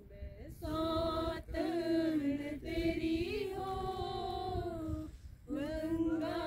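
Shiva bhajan, a Hindu devotional song, sung by a woman's voice in long drawn-out phrases with brief breaks between them.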